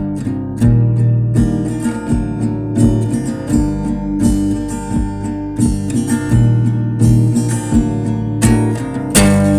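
Instrumental music: acoustic guitar strumming chords in a steady rhythm, with one last strong strum near the end left to ring out.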